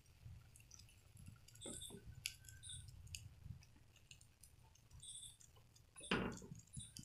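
Faint crackling of oil bubbling around the edges of an omelette in a non-stick frying pan over a low flame, small scattered pops and ticks, with a plastic spatula pressing on the eggs. A short louder sound comes about six seconds in.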